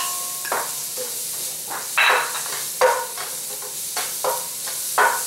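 Onions, garlic and ginger sizzling in hot coconut oil in a stainless-steel frying pan, with a steady hiss. A wooden spoon stirs and scrapes across the pan in about five separate strokes.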